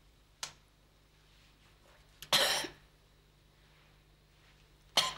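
A person coughing: a loud, short cough about two and a half seconds in, and a sharper one near the end, with a faint shorter sound about half a second in.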